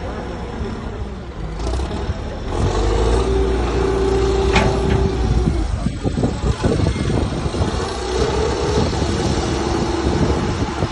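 A heavy vehicle's engine running steadily with a whine, growing louder about two and a half seconds in.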